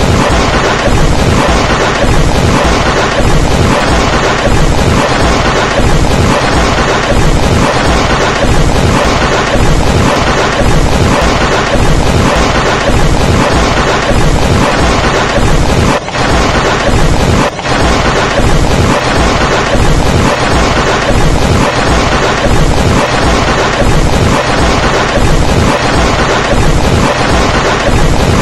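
Very loud, heavily distorted noise filling every pitch, pulsing at a steady rate of about once a second, with two brief drops about two-thirds of the way through.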